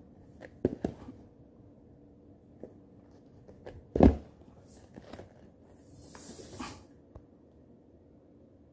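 Handling noise close to the microphone: scattered light knocks and rubs, one heavy thump about four seconds in, and a short rustling hiss around six seconds.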